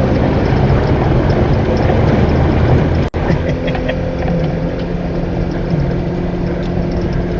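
Fiat Panda 4x4 engine running steadily on the move, under a dense rushing road-and-water noise. The sound cuts out for an instant about three seconds in.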